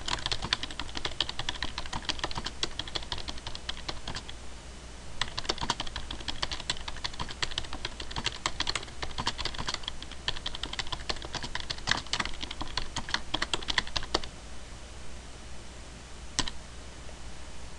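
Typing on a computer keyboard: rapid keystrokes in two long runs with a short pause about four seconds in, stopping about fourteen seconds in, with one more keystroke near the end.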